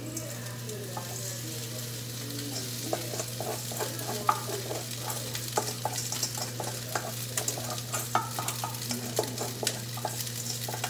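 Garlic frying in oil in a nonstick pan, sizzling steadily, while cooked rice is spooned in from a stainless steel bowl: a spoon scrapes and taps against the bowl and pan many times, the clicks getting busier after about two and a half seconds.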